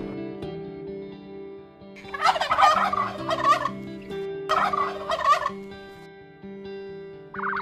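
Domestic fowl calling in two bursts of rapid warbling, the first about two seconds in and the second shorter, over background music.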